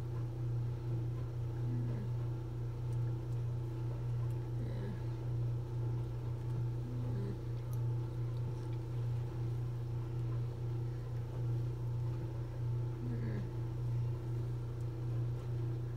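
A steady low machine hum with a fainter steady tone above it, unchanging throughout, with a few faint short sliding sounds about 2, 5, 7 and 13 seconds in.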